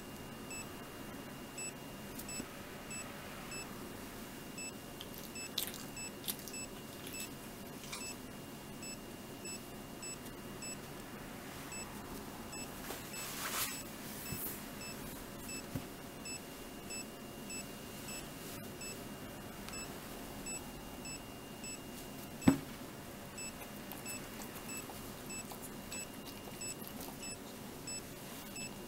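SANEI handheld ECG monitor giving a short high beep with each detected heartbeat, roughly one to two beeps a second, tracking a boxer's heart rhythm that includes ventricular premature contractions from ARVC. One sharp knock about two-thirds of the way through.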